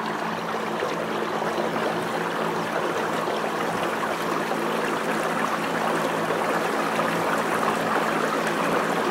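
Water rushing and splashing along the hull of a small boat under way, with a steady low motor hum underneath.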